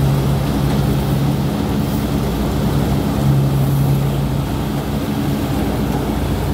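Crop threshing machine running at a steady speed, a loud continuous drone with a humming tone, as bundles of dry stalks are fed into its drum.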